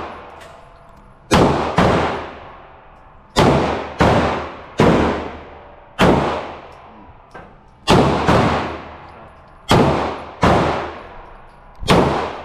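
About eleven pistol shots fired at a steady, unhurried pace, singly and in quick pairs. Each crack rings out and fades into the echo of an enclosed indoor range.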